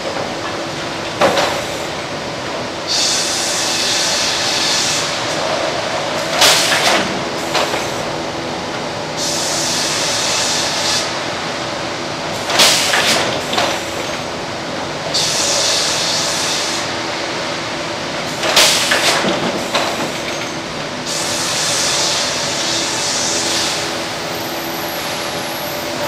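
McDonough band headrig and log carriage running, with a steady machinery hum. About every six seconds a hiss lasts some two seconds, and a sharp clunk falls between each pair, as the carriage shuttles a log back and forth through the band saw.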